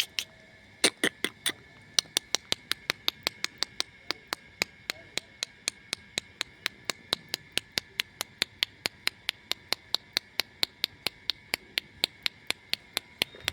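Rapid, sharp clicking, a few irregular clicks at first, then settling about two seconds in into a steady rhythm of about five clicks a second.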